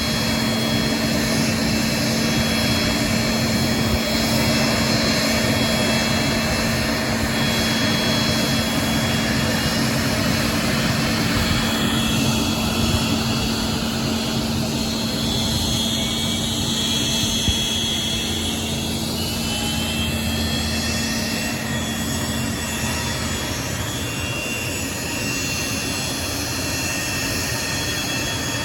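Private jet's engines running, a loud, steady roar with a high whine that shifts in pitch through the middle.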